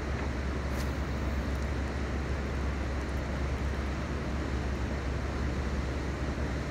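A steady low rumble with a hiss over it, unchanging throughout, and one faint high tick about a second in.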